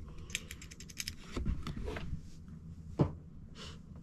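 A Nicpro 2 mm metal mechanical pencil being handled: a quick run of light clicks in the first second, scattered small ticks, and one louder knock about three seconds in.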